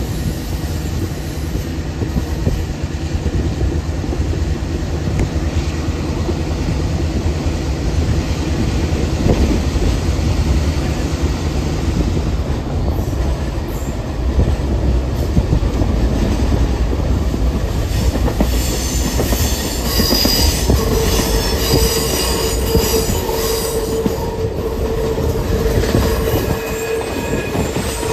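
Train rolling over jointed rail: a steady rumble with the click of wheels over the rail joints. About twenty seconds in, a steady wheel squeal joins and holds for several seconds.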